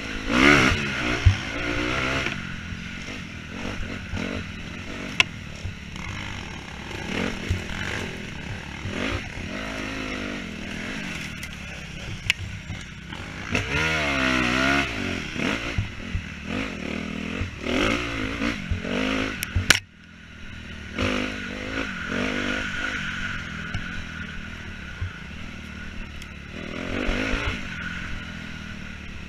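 Off-road enduro motorcycle engine being ridden hard, revving up and down over and over, with clatter and knocks from the bike on rough dirt. About two-thirds of the way through there is one sharp, loud knock, and the engine sound drops away briefly before picking up again.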